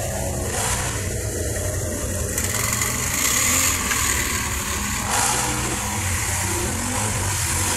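ATV engine running, its pitch swinging up and down a little, under a steady high hiss.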